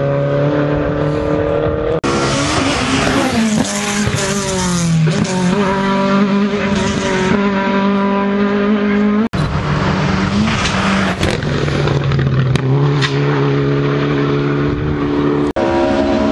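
Rally car engines running hard on a stage, several cars in turn, the revs rising and falling as they come over the crest. The sound cuts suddenly from one car to the next.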